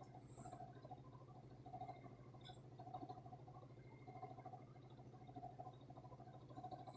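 A heater and a fan running together, heard faintly: a steady low hum with a soft swell about once a second.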